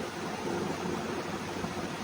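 Steady background noise: an even hiss with a low rumble, unchanging throughout.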